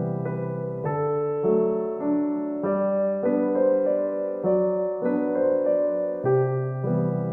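Background piano music, a gentle melody of notes changing about every half second over a sustained bass.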